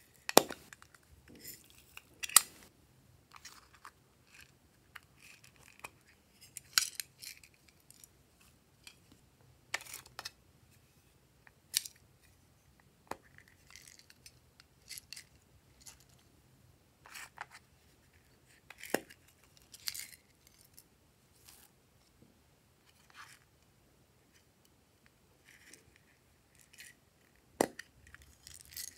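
Small hinged metal tins being handled and opened, giving irregular sharp clicks and taps with short crackly handling noises between them; the loudest clicks come in the first few seconds.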